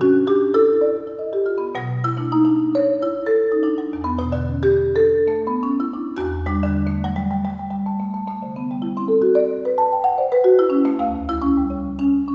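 Solo concert marimba played with mallets: quick runs of struck notes in the middle and upper range over deep low notes, some of them held with a fast tremolo roll.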